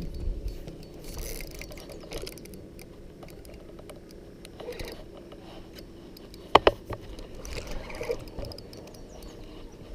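Fishing reel being cranked with a mechanical, ratchety gear sound while a hooked fish is fought. Two sharp knocks about six and a half seconds in are the loudest sounds.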